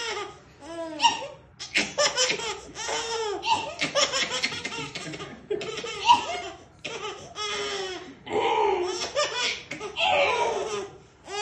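A baby laughing in repeated short bursts, with a woman laughing along.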